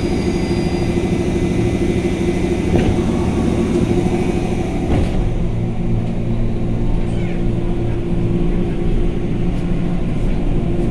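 KRL Commuter Line electric train standing at the platform, humming steadily with several steady low tones, heard from the open doorway and then from inside the car. A high whine fades out about a second in, and there are a couple of light knocks.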